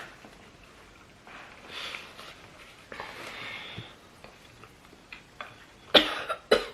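A person coughing: two short, sharp coughs about six seconds in, with fainter breathy sounds before them.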